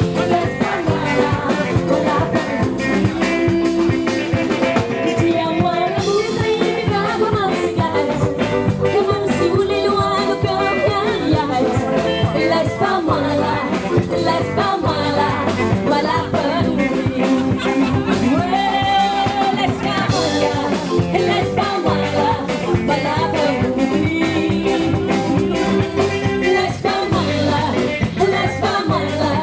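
A woman singing live into a microphone over loud amplified music with a steady dance beat.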